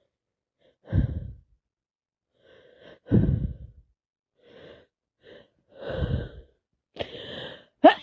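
A person with a cold breathing heavily in a string of sighs and catching breaths, the loudest about one and three seconds in, building up to a sneeze that starts sharply right at the end.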